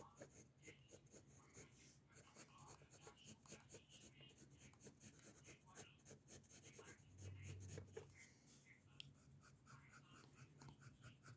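Faint graphite pencil scratching across paper in many quick, short sketching strokes.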